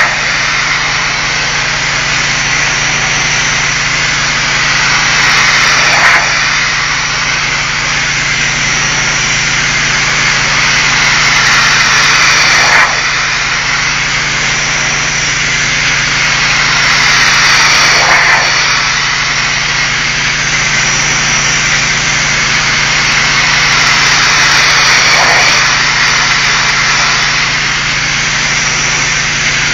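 Pressure washer spray hissing hard against a brick wall over the steady hum of the washer's engine. The hiss swells and drops off sharply about every six seconds as the wand sweeps back and forth across the bricks.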